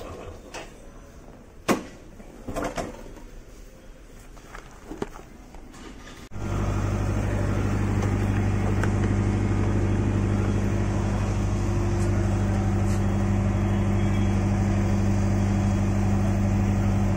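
A few faint clicks and knocks, then, about six seconds in, a loud, steady, low machine hum starts abruptly and holds at an even pitch.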